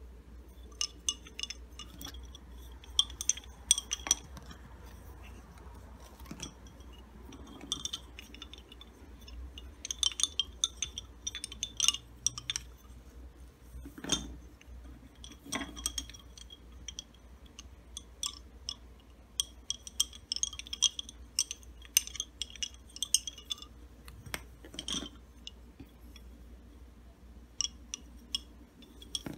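Wooden lace bobbins clicking against one another in quick irregular clusters as pairs are crossed and twisted while making bobbin lace, with a few heavier knocks now and then.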